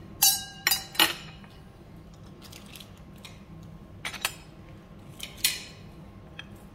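China plates and cutlery clinking as a table is cleared. There is a cluster of sharp clinks in the first second, the first ringing briefly, then a few more scattered clinks about four and five and a half seconds in.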